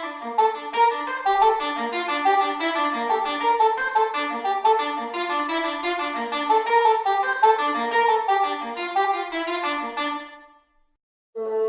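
Sampled woodwind from the Spitfire Studio Woodwinds library playing fast runs of notes, fading out about ten and a half seconds in. After a moment's silence, a new sustained chord begins just before the end.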